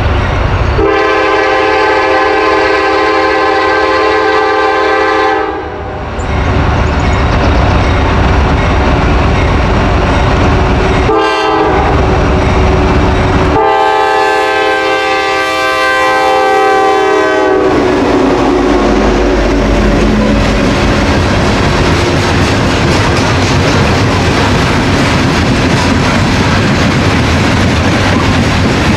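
Diesel freight locomotive sounding its horn, a several-note chord: a long blast, a short toot about eleven seconds in, and another long blast. Then the locomotives' engines pass close by, followed by coal hopper cars rolling past with a steady clickety-clack of wheels on the rails.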